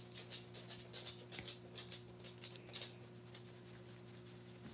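Faint, quick scratching and light tapping of a makeup brush working powder eyeshadow from a palette, over a steady low electrical hum.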